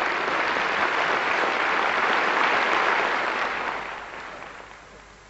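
Large audience applauding, holding steady and then fading away over the last couple of seconds.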